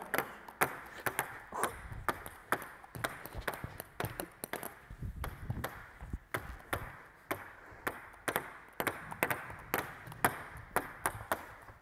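Table tennis balls bounced repeatedly on bats, alternating the forehand and backhand sides: a quick, irregular run of light clicks of ball on bat, about two to three a second.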